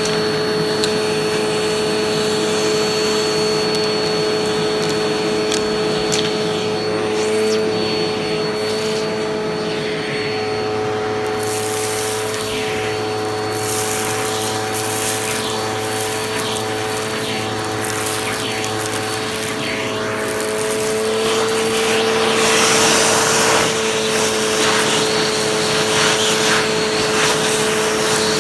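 Vacuum cleaner running steadily with a constant motor whine while its hose and crevice tool are drawn over carpet. From about a third of the way in, a rougher hiss with scattered crackles comes in as debris is sucked up.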